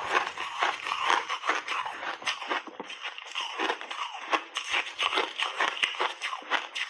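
Close-miked crunching of a frosted, refrozen ice ball being bitten and chewed: a dense, irregular run of sharp cracks and crackles.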